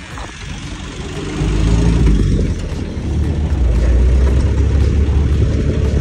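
Ride in an open-top 4x4 filmed from on board: the vehicle's engine and wind buffeting the microphone make a heavy low rumble that grows sharply louder about a second and a half in and stays loud.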